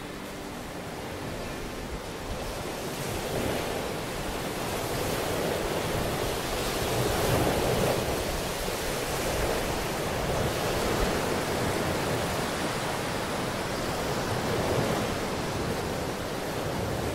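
Ocean surf: a steady rushing of waves that swells and ebbs slowly, loudest around the middle.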